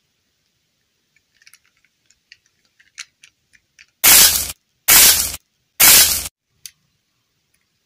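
Play dough being squeezed and pulled off a small plastic doll's head by fingers. Faint clicks and crackles give way to three loud scraping noises, each about half a second long, close to the microphone.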